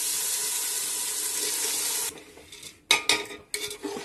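Soaked rice sizzling in hot ghee as it goes into the pot: a steady hiss that stops about two seconds in. After it, a slotted spoon clacks and scrapes against the pot as the rice is stirred.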